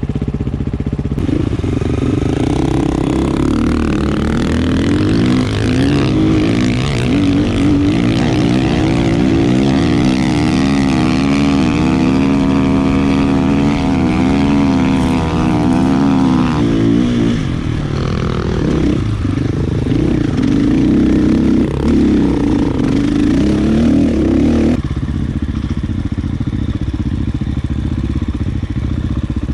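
A 2019 KTM 450 EXC's single-cylinder four-stroke engine being ridden off-road, its pitch rising and falling as the throttle opens and closes, steadier through the middle and easing off near the end.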